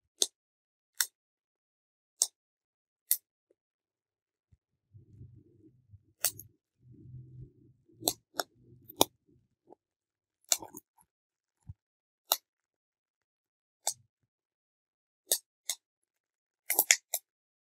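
Bubble wrap bubbles popping one at a time under the fingers: sharp snaps about once a second, with a quick run of several pops near the end.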